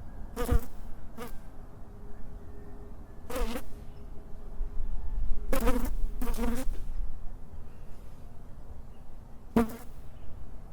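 A fly buzzing in short passes close to the microphone, six brief buzzes a second or two apart, over a steady low rumble and hiss.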